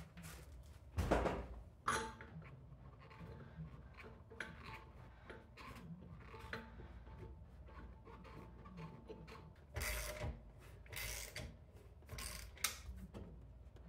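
Porsche alloy wheel being hung on a VW Beetle's rear drum hub and bolted on: a thump about a second in and a sharp metal click just after, then scattered clinks of lug bolts being threaded. Near the end comes a socket wrench working the bolts, with bursts of scraping and ticking.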